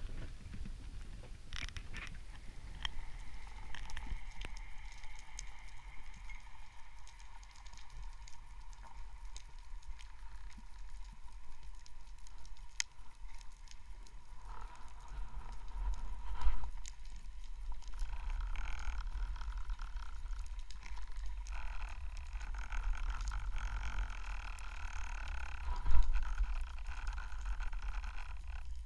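Muffled low rumble of water moving past an underwater camera in its housing, with a faint steady whine above it. Two sharp knocks stand out, one a little past halfway and one near the end.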